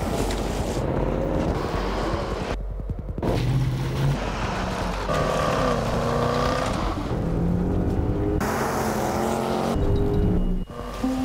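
Range Rover Sport engine revving up and down as the SUV drives down a steep slope of loose rock, over a music bed.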